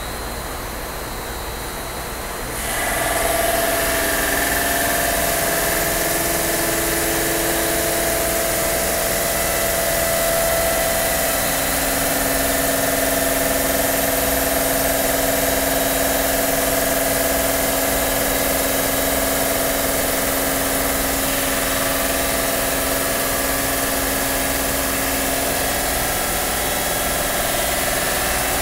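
Park Voyager CNC bridge saw's spinning diamond blade with its water spray running; about two and a half seconds in it gets louder and a steady whine of several tones sets in as the blade cuts through the stone slab.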